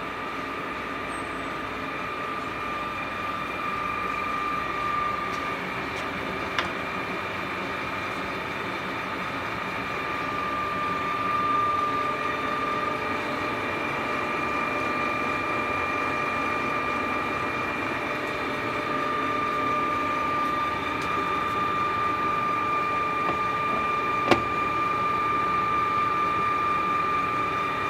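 Zubal AP 250 centre lathe running, a steady high whine over a mechanical rattle and hum, with two sharp clicks.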